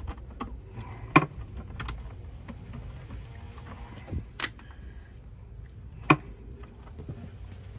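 Scattered sharp metallic clicks and taps of a 9/16-inch wrench tightening a nut on a battery terminal post, the loudest about a second in and again about six seconds in.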